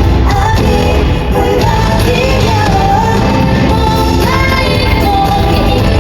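A female K-pop group singing live over a loud amplified pop backing track with heavy bass, holding long sung notes that step in pitch.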